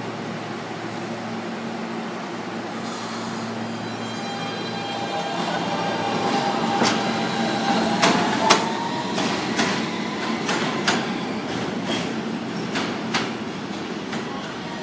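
R160B subway train pulling out of an elevated station: its motors whine, rising slightly in pitch as it gathers speed. Its wheels then click sharply over rail joints about a dozen times as it runs off down the track.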